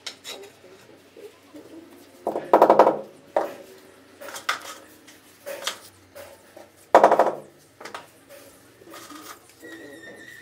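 Clattering knocks and clicks of porcelain plank floor tiles being set and tapped down into tile adhesive, with two louder bursts of rapid knocks a few seconds apart and lighter clicks between.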